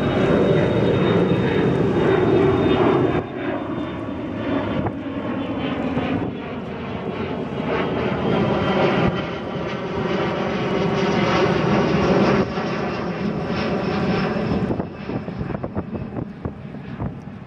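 Large car ferry's engines running with a steady, layered drone as the ship gets under way; the drone drops in loudness twice, and near the end wind buffets the microphone.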